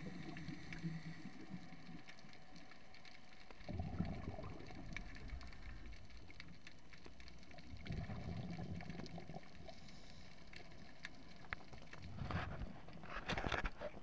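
Scuba diver breathing through a regulator underwater: a bubbling rumble of exhaled air about every four seconds, with quieter hiss between breaths.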